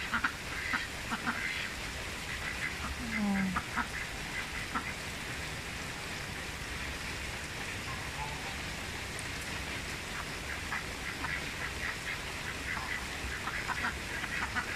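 White domestic ducks quacking in short, scattered calls, several in quick runs, with a pause in the middle. Steady rain patters on the pond water underneath.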